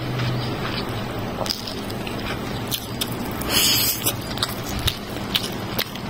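Fingers mixing and squishing biryani rice and meat on a plate while eating by hand, with small wet clicks and a brief rustling burst a little past halfway, over a faint steady low hum.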